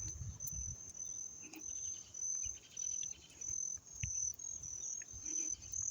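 An insect chirps in a steady, high-pitched run of short pulses, under uneven low rumbling on the microphone.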